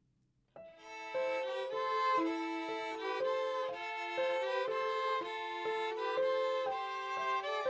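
Background music led by a violin, starting about half a second in after a brief silence.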